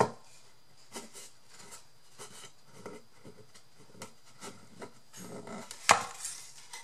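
Handling of a wooden box: scattered light knocks and clacks of wood and its handles against the hands and tabletop. A sharp knock at the start and a louder one about six seconds in, as the box is turned over.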